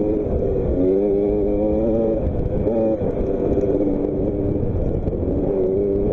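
A motocross bike's engine running, its pitch wavering up and down with a brief dip about halfway, over a heavy low rumble.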